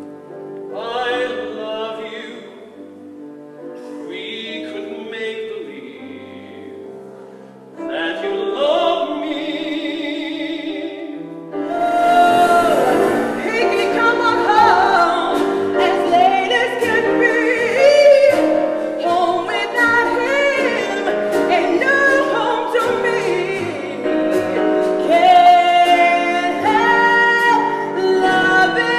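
Show-tune singing with grand piano. For the first eleven seconds or so it is a man and woman's duet in separate sung phrases. About twelve seconds in it changes suddenly to a louder, fuller passage: a woman singing full-voiced over piano, drums and cymbals.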